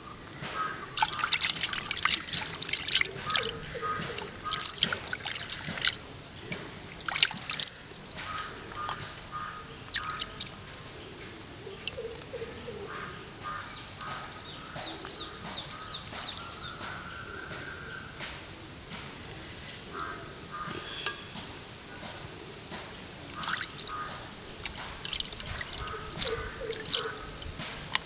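Water sloshing and dripping in a steel bowl as hands rinse raw dressed quail and pick off feathers. The splashes come in short bunches, busiest in the first few seconds and again near the end.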